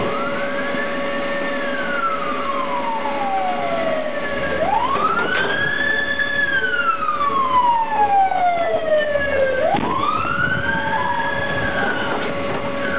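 Police car siren in wail mode: each cycle sweeps quickly up, holds, then glides slowly down, repeating about every four to five seconds, over a steady hum.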